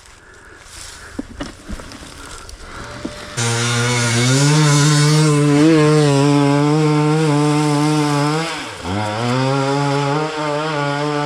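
Enduro dirt bike engine, first only a few scattered knocks, then a third of the way in it comes in suddenly and runs loud at high revs. Near the end the revs dip sharply and climb back.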